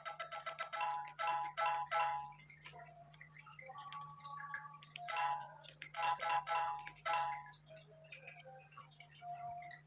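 Quiet background music of short plucked-sounding notes in quick groups, over a faint steady low hum.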